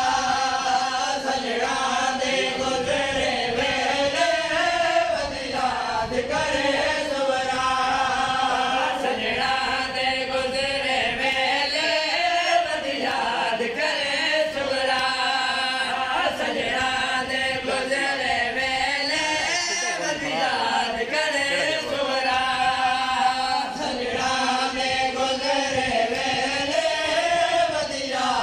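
Male noha reciters chanting a mourning lament (noha) through a microphone and loudspeaker, in long held, wavering phrases that repeat, with mourners' chest-beating (matam) beneath it.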